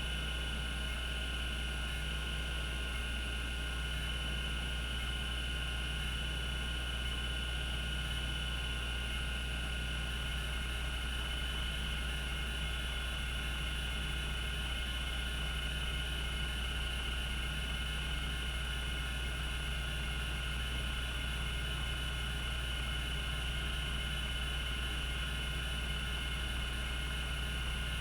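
Cogito Systems CG-912 half-height 5.25-inch MFM hard drive spinning at its 3600 RPM, a constant low hum with a steady high whine above it and no head-stepping clicks.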